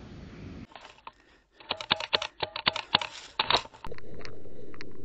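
A quick, uneven run of about a dozen sharp clicks over two seconds, then a sudden cut to a steady hiss.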